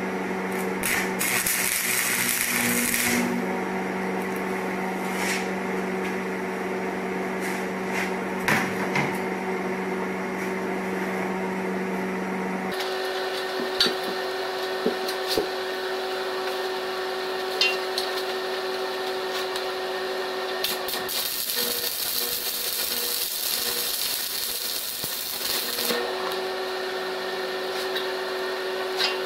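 Occasional sharp metal clanks as steel tube pieces and C-clamps are handled on a steel welding table, over a steady machine hum.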